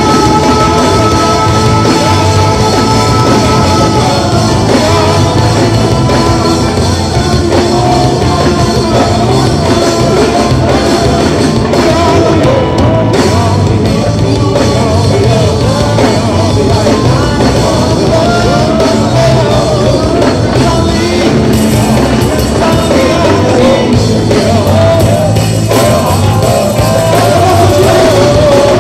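Live band music with a group of singers singing together into microphones over a steady beat, loud and continuous.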